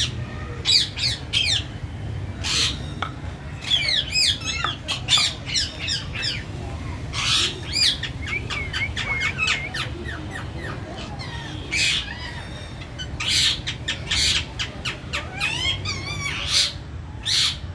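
Birds squawking and chirping: many short, harsh calls in quick succession, over a low steady rumble.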